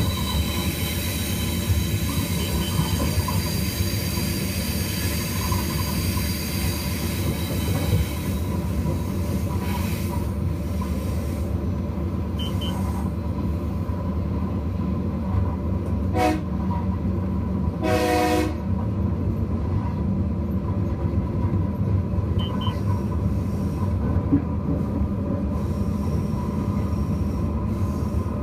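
Diesel locomotive of a Tasrail ballast train running with a steady rumble of engine and wheels on the rails. A high wheel squeal on the curve fades out about eight seconds in, and past the middle the horn sounds twice, a short toot and then a longer blast.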